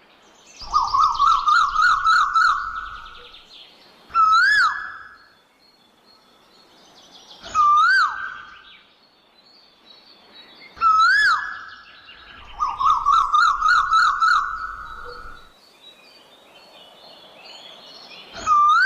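Asian koel calling: loud single swooping whistled notes, rising then falling, repeated every three to four seconds, and twice a rapid run of quick repeated notes lasting a couple of seconds.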